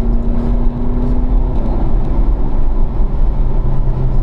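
Car engine pulling hard under acceleration in third gear, its pitch rising slightly, with heavy road and wind rumble heard from inside the cabin.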